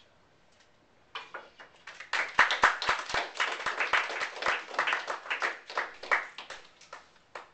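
A small audience applauding: claps start about a second in, build to dense clapping, and thin out to a few last claps near the end.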